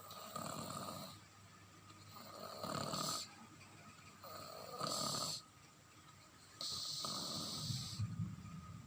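A sleeping baby snoring, four snoring breaths about two seconds apart.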